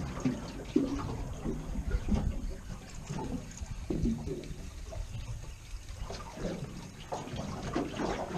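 Sea water slapping and sloshing irregularly against the hull of a drifting boat.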